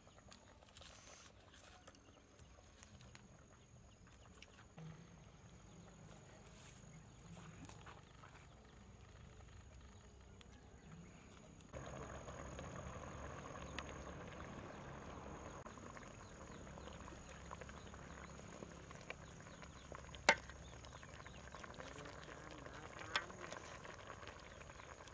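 Quiet at first; about halfway in, a metal ladle stirring and pouring curry from a steaming pot, with two sharp metal clinks near the end.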